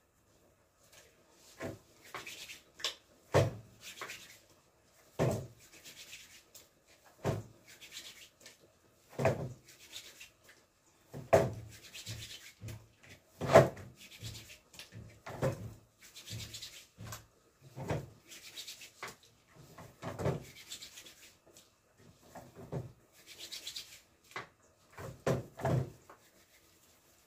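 A person's hands rubbing and slapping together: a dry rubbing hiss broken by sharp slaps about every two seconds.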